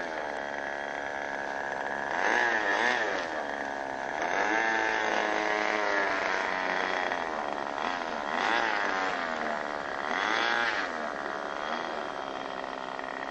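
Small engine of a radio-controlled float plane running as the model taxis on the water, a high buzz whose pitch rises and falls several times.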